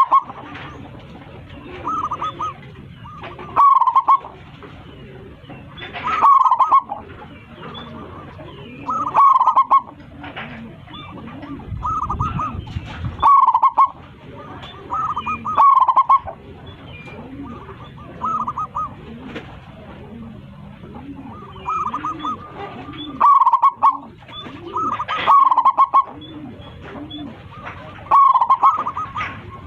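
Zebra dove (local perkutut) cooing its song over and over, a short phrase of quick coos about every two to three seconds.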